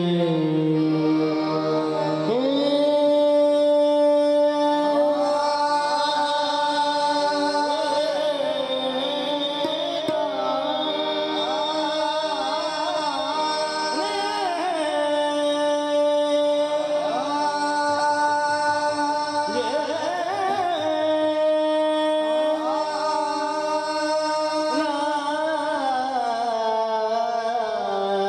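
Male qawwali singers holding long notes that slide and waver through Raag Hamir, over a steady harmonium accompaniment.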